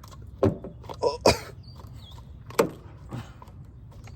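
A few short, sharp knocks and clatters, the loudest about a second in.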